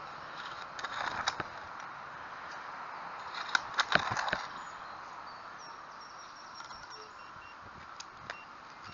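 Small metal digging spade chopping and scraping into grassy soil and roots, in two short bursts of knocks and scrapes, the second near the middle the louder, over a steady background hiss.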